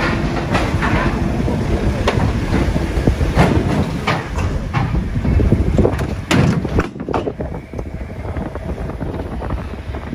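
Vehicle driving slowly off a Channel Tunnel shuttle carriage: a steady rumble of engine and tyres with a run of knocks and clunks as the wheels cross the carriage floor plates and exit ramp. After about seven seconds it settles to steadier road and wind noise.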